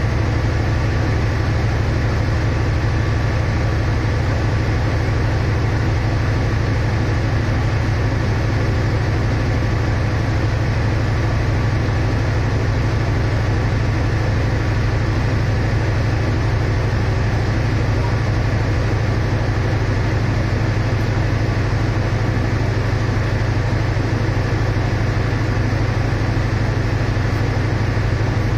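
Diesel engine of a passenger train standing at the platform, running steadily at idle: a loud, even low hum that does not change.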